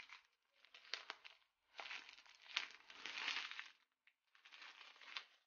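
Clear plastic shrink wrap crinkling and crackling as it is peeled off an Apple Pencil box, in several separate bursts with sharp crackles.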